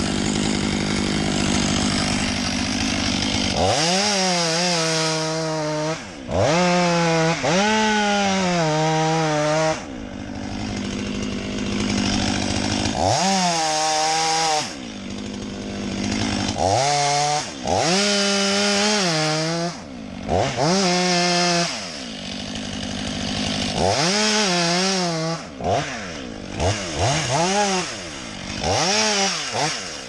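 Petrol chainsaw switching between idle and about nine full-throttle bursts, each lasting one to three seconds. Within the bursts the engine pitch sags and recovers as the chain bites into wood, then drops back to idle.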